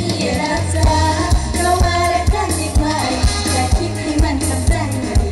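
Live Isan stage-band music over a PA system: a singer over a steady bass line and a kick drum beating about twice a second.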